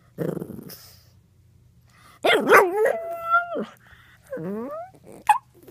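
Pug puppy howling in a few short, wavering calls: one note held steady, and a last call rising in pitch.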